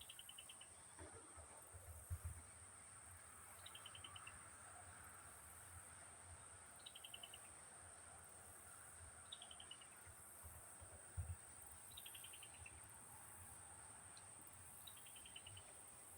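Faint outdoor insect chorus: a steady high-pitched drone, with a short descending trill of quick pulses repeating about every three seconds. Two soft low thumps come, one about two seconds in and one about eleven seconds in.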